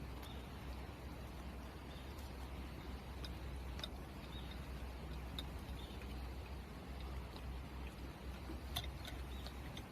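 Quiet outdoor background noise: a steady low rumble with a few faint, scattered clicks and ticks.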